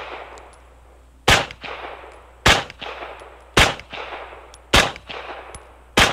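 Semi-automatic pistol fired in slow, steady succession: five shots about a second apart, each followed by a trailing echo.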